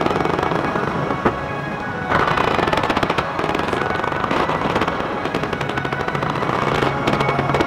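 Fireworks going off in rapid, dense volleys of cracks and bangs, like machine-gun fire, with music playing underneath. The volleys thicken and get louder about two seconds in.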